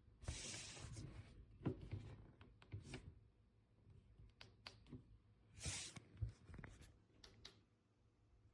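Faint handling noises: two brief rustling stretches, one at the start and one a little past halfway, with scattered light clicks and knocks in between, fading to quiet room tone near the end.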